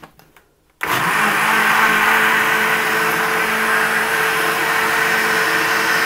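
Countertop blender motor switching on about a second in and then running steadily, churning a watery mix of nut-and-seed powder, water and sugar.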